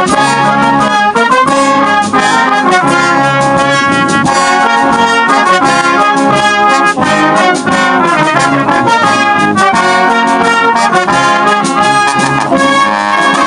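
Brass band playing a tune live and loud, trombones, tubas and cornets sounding together in full harmony.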